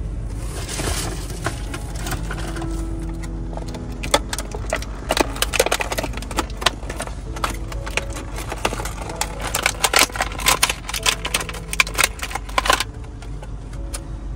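Clear plastic bag crinkling and crackling as it is pulled open by hand, a dense run of sharp crackles starting about four seconds in and stopping shortly before the end.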